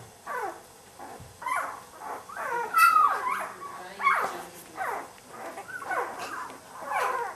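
Newborn golden retriever puppy crying in a string of short squeals that slide down in pitch, about one or two a second, with the loudest and highest about three seconds in: the pup protesting being handled during early neurological stimulation exercises.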